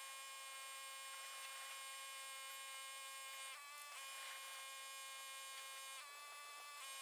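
Faint background music of held, sustained chords that shift to new notes every couple of seconds, with no low bass.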